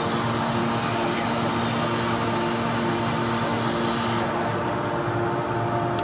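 Hydraulic power unit of a 500-ton automatic scrap metal baler running steadily: an even machine hum with several constant tones and a hiss. About four seconds in, the hiss and one tone drop away while the hum goes on.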